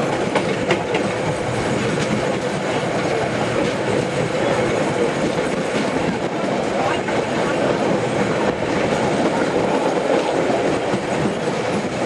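Passenger train running on the rails, heard on board: a steady rumble of wheels and carriage with occasional faint clicks.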